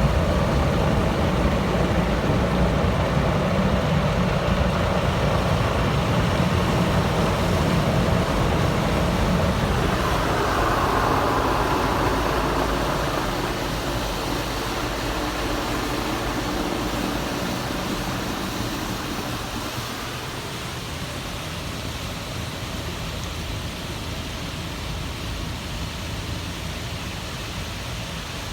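Automatic car wash machinery running: a steady rushing noise with a low rumble that eases off about halfway through, leaving a softer, even hiss.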